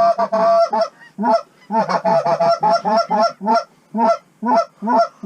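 Canada goose honking: a dense run of honks at the start, then a rapid series of separate honks about twice a second.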